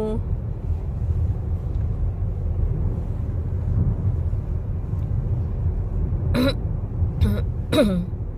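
Steady low rumble of a moving vehicle, heard from inside. Near the end there are three short voice sounds, the last falling in pitch.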